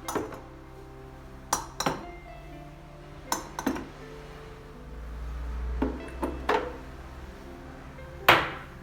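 Clinks and knocks of dishes or other hard household items being handled and set down, about nine in all, the loudest near the end, over soft background music.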